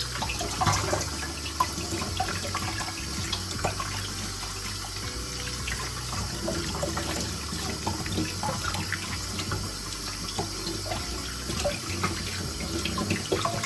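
Kitchen tap running into a sink, with many small clicks and splashes of handling under the stream.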